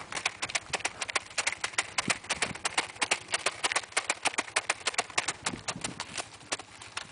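Footsteps crunching through snow: a quick, uneven run of sharp crunches, several a second, that softens near the end.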